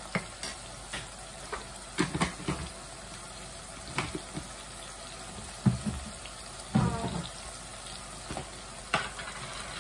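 Onions, tomatoes and green chillies frying in oil in an aluminium saucepan, a steady low sizzle, with a few short knocks scattered through it.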